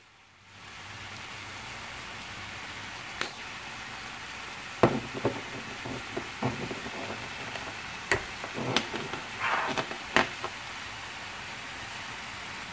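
Vegetables in tomato purée sizzling steadily in a frying pan, with scattered clicks and knocks from about five seconds in as a bottle of Italian seasoning is handled over the pan.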